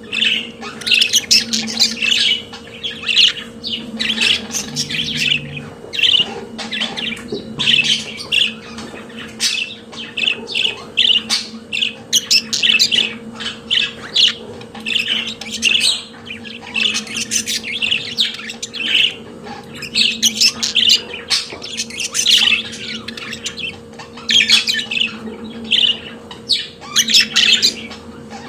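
Budgerigars singing: a continuous warbling chatter of fast chirps, squawks and clicks, over a faint steady hum.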